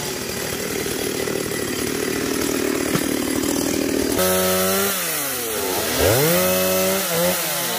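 Two-stroke chainsaws running: for about four seconds a saw buzzes steadily under load, cutting branches. Then, after an abrupt change, a saw engine revs with its pitch dropping and rising several times, while another saw holds a steady pitch, several saws running at once.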